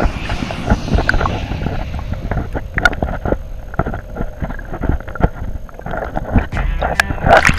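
Muffled water sound picked up by an action camera held underwater: sloshing and rumbling with many sharp clicks and knocks, and a louder rush near the end.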